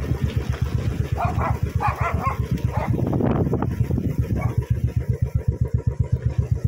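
Royal Enfield motorcycle engine running at a steady pace while riding, its exhaust beating in an even, rapid thump. A few short higher-pitched sounds come over it between about one and four seconds in.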